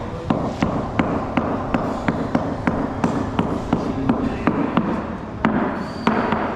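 Sharp, regular knocks, about three a second, over a steady noisy background, like repeated hammer or tool strikes on a construction site.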